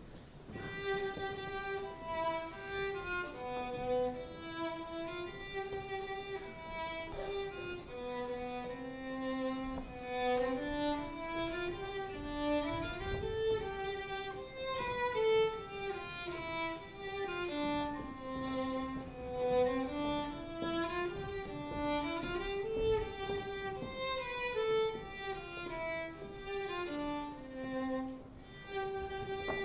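Violin playing a folk melody on its own, a single line of notes moving up and down in steps.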